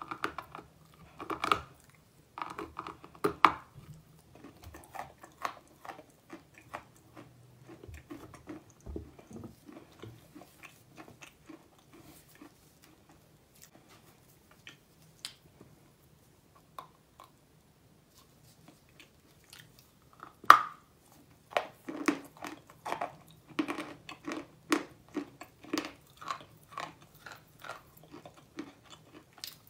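A person biting into and chewing a large lump of chalk: crisp crunching bites near the start, sparser, quieter chewing in the middle, then a sharp crack about twenty seconds in followed by a run of crunching.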